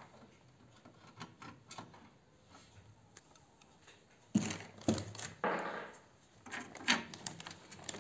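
Handling noises from an open DVR case: faint light clicks at first, then from about four seconds in several sharper knocks and rustling as a hard disk and its cables are set into the case.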